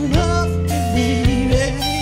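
Live band music: a male singer's wavering voice over electric bass, guitar and drums with a steady beat.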